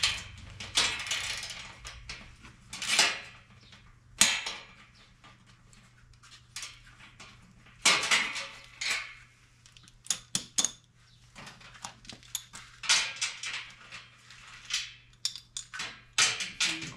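Metal parts clanking and rattling as they are handled: irregular knocks and clinks with short ringing, coming in clusters with brief pauses between them.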